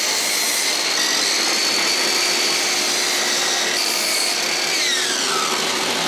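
Chicago Electric compound miter saw running loudly and cutting through a 1x8 pine board: a dense, steady whine whose pitch sags about five seconds in.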